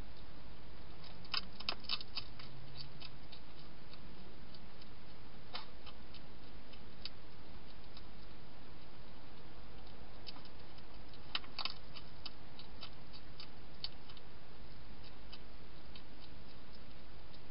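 Hedgehog crunching dry food: irregular sharp crunches and clicks, some in quick clusters, over a steady hiss.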